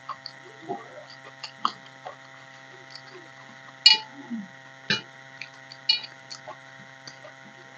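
A hand mixing boiled rice with mashed potato on a steel plate: soft wet squelches and scattered clicks of fingers on the metal, with sharper clicks about four, five and six seconds in. A steady electrical hum runs underneath.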